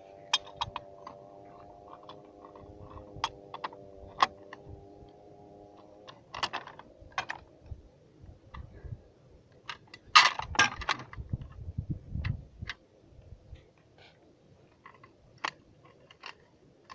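Steel parts of a 14.5 mm anti-aircraft heavy machine gun clicking and clanking as they are handled and fitted together, with a loud cluster of metal clacks about ten seconds in.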